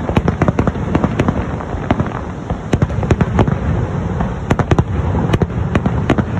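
Fireworks going off in a rapid, irregular barrage of bangs and sharp cracks, several a second, over a continuous low rumble.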